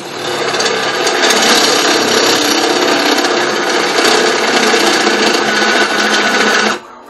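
Benchtop drill press drilling into metal: a loud, steady grinding of the bit cutting over the motor's hum, which cuts off suddenly near the end.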